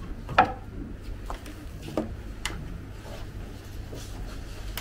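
Tableware being handled during a meal: a few light knocks and clicks, the sharpest about half a second in, over a low steady hum.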